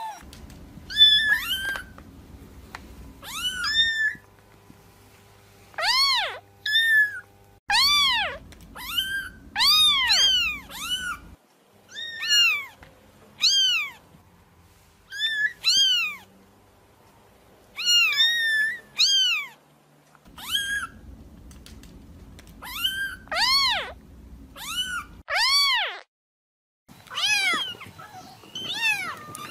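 Kittens meowing over and over: short, high-pitched meows, some single and some in quick runs of two or three, with short pauses between. A low background hum cuts in and out abruptly between the calls.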